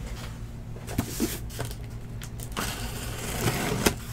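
Handling noise from opening sports-card packaging: scattered light clicks and knocks, then a rustling of wrapping for about a second and a half in the second half.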